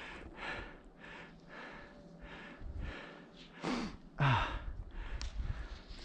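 A skier breathing hard from exertion, quick rhythmic puffs about two a second. A little past the middle come two louder, voiced exhales that fall in pitch.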